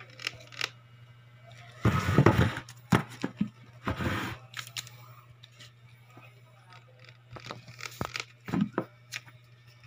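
Handling noise: scattered clicks and two louder rustling, scraping bursts, about two and four seconds in, over a steady low hum.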